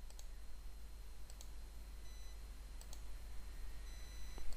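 A few faint computer mouse clicks, spaced a second or more apart, over a low steady hiss.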